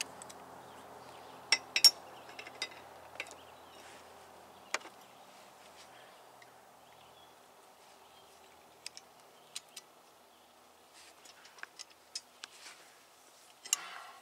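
Scattered sharp metallic clicks and clinks from the steel parts of a brake-line double-flare tool (clamping bar, yoke and die) being handled and fitted together, loudest about two seconds in and again near the end.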